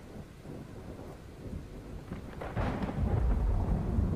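Thunderstorm: low rolling thunder over rain, with a sharper thunderclap about two and a half seconds in, after which the rumble is louder.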